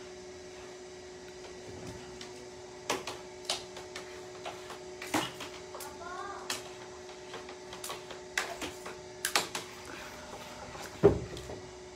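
A wooden door knocked and bumped: a string of light taps and clicks, with a heavier thump near the end, over a steady low hum.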